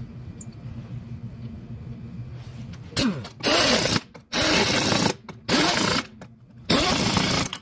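Power impact wrench spinning the lug nuts onto a golf cart's wheel hub in four bursts, each up to about a second long, starting about three seconds in. A steady low hum runs underneath.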